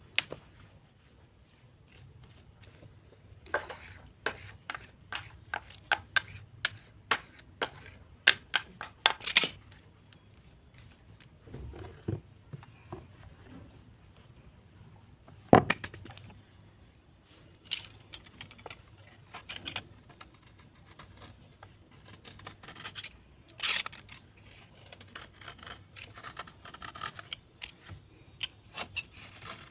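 Crisp crunches and cracks of a crumbly earthy block being broken and scraped, coming in irregular clusters with one especially loud crack about halfway through.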